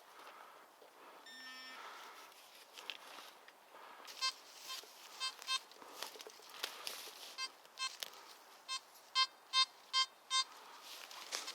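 Nokta Makro Simplex Plus metal detector signalling a target: a brief low tone, then a run of about a dozen short beeps at one pitch, two or three a second, loudest near the end. Light footsteps and rustling on the forest floor underneath.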